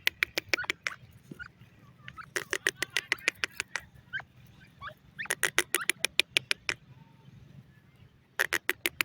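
Dakhni teetar (francolin) calling in bursts of rapid, sharp repeated notes, about ten a second. The bursts come four times, each lasting about a second, the first already under way.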